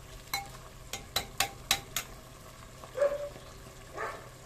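Metal ladle stirring chicken in a clay pot: a quick run of sharp clinks and knocks against the pot in the first two seconds, then a couple of softer scrapes, over a faint sizzle from the simmering sauce.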